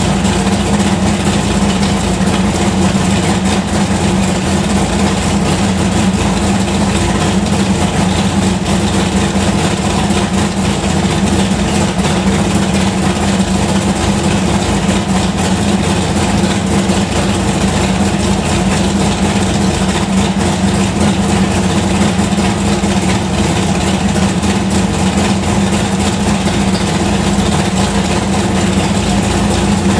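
Big-block Chevrolet V8 in a 1981 Malibu drag car idling steadily, with no change in revs.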